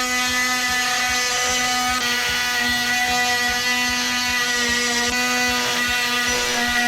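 DeWalt oscillating multi-tool with a carbide-tipped blade running at a steady, high-pitched whine, cutting into a seat security bolt seized with Loctite.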